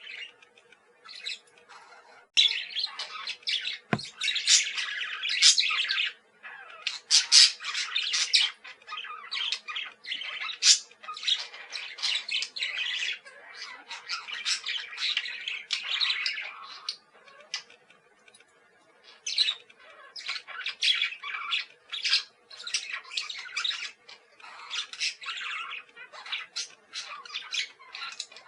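Parakeets chattering and squawking in fast, overlapping bursts of high calls, with a short lull past the middle. A single sharp knock about four seconds in.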